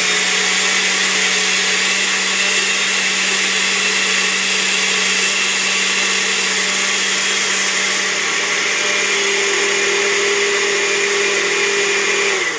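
Countertop blender running steadily, blending a thick mixture of avocado, mayonnaise, egg and oils until smooth.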